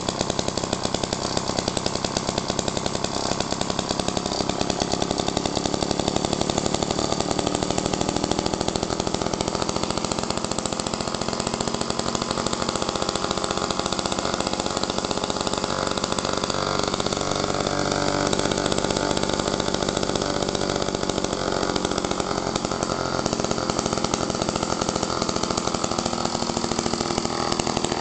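1950s Power Products AV-47 two-stroke lawn mower engine running steadily, with a fast, even firing rhythm.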